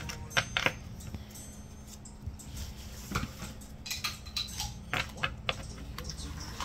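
Pokémon trading cards and a foil booster-pack wrapper being handled: irregular crinkles, rustles and light clicks, in a few clusters.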